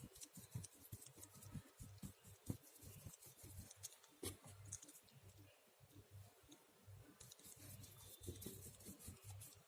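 Faint, irregular scraping and light taps of a painting knife working acrylic paint on a board canvas.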